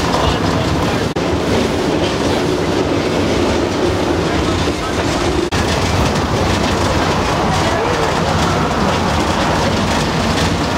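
Steam train's open-sided passenger carriage running on narrow-gauge track: a steady rumble and clickety-clack of wheels on rail, heard from inside the carriage. The sound drops out sharply for an instant twice, about a second in and halfway through.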